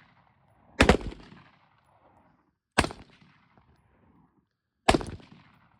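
Three gunshots about two seconds apart, each followed by a short fading echo.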